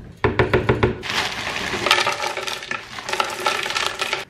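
A metal spoon knocks quickly against a plastic blender jar as quark is scraped off it. Then frozen berries poured from a bag rattle and clatter into the jar for about three seconds, stopping just before the end.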